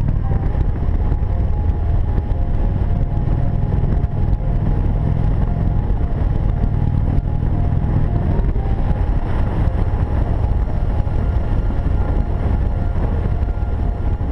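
Harley-Davidson Road King Classic's V-twin engine running steadily at cruising speed, with wind noise on the microphone.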